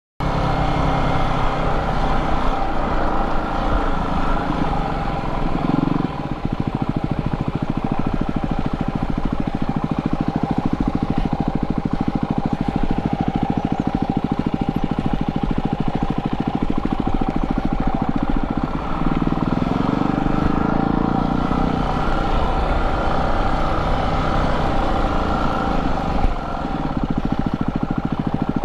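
Yamaha WR250R's single-cylinder four-stroke engine running while the bike is ridden, its revs dipping and rising a few times with the throttle and gears.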